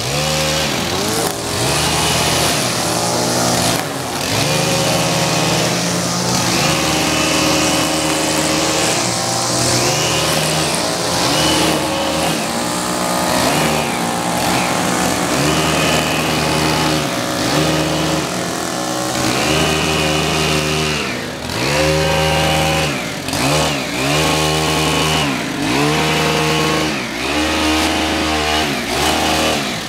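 Gas-powered pole hedge trimmer's small engine revving up and down over and over as it cuts through a hedge, falling back between bursts. The bursts are longer at first and come quicker and shorter later on.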